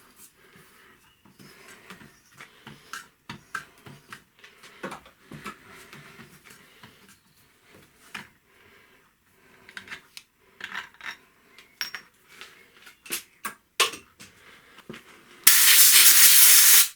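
Scattered clicks and short scrapes of metal tools being handled, then a loud burst of compressed air lasting about a second and a half near the end, like an air blow gun clearing swarf from a freshly tapped hole.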